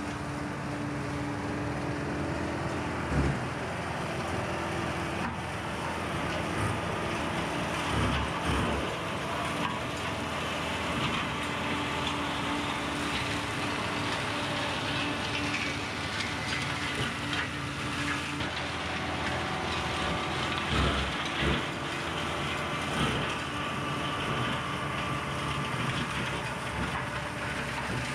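John Deere 4066R compact tractor's diesel engine running under load while its PTO flail mower shreds tall weeds and brush, a steady shredding noise. A few sharp knocks stand out, one about three seconds in, others near eight and twenty-one seconds.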